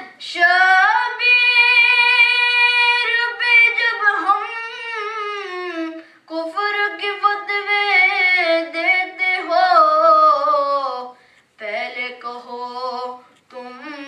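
A boy singing a manqabat unaccompanied, drawing out long held notes with slow slides in pitch and pausing briefly for breath about six and eleven seconds in.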